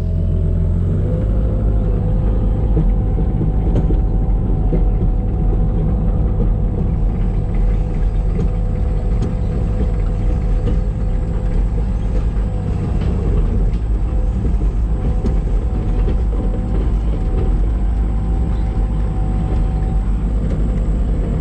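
A heavy diesel engine running steadily at an even speed: a constant low rumble with a faint steady whine over it.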